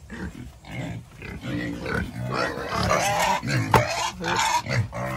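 Hungry black pigs grunting and squealing in their pen as feeding time comes, with a sharp knock a little before four seconds in.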